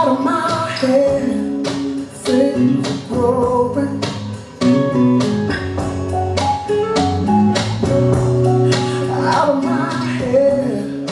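A song with sung vocals and guitar over a steady beat, playing as music for West Coast Swing dancing.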